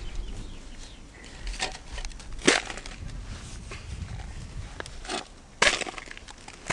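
Dry grass and dirt crunching and crackling as dirt is scooped by hand onto a paper plate, with a handful of sharp crackles, loudest about two and a half seconds in and again near the end. A low rumble from the handheld camera runs underneath.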